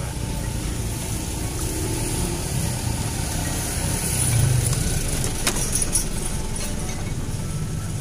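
Road traffic: a motor vehicle's engine rumbling low, growing louder about halfway through and then easing off as it passes, with a couple of sharp clicks a little after.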